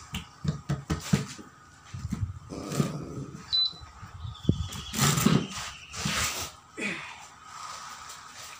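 Hand-handling noise of a truck tyre: irregular rubbing, scuffs and knocks as powder is worked around the inside of the tyre by hand and the tyre is then stood upright.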